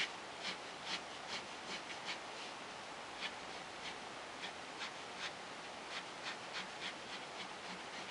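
Pen scratching on paper in short, irregular strokes, about two or three a second, as a line is drawn.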